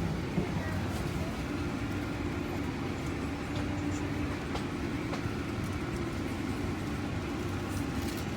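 Steady low rumble of a moving vehicle, with a faint even hum.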